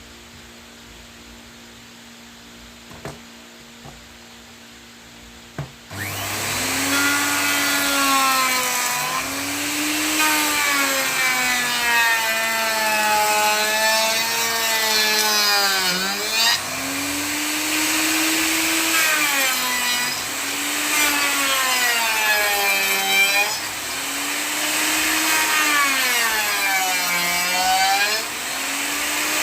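Electric wood router cutting a decorative profile into a wooden cabinet door. The motor starts about six seconds in and its pitch keeps dipping and recovering as the bit bites into the wood. Before it starts there is only a faint hum and a few light clicks.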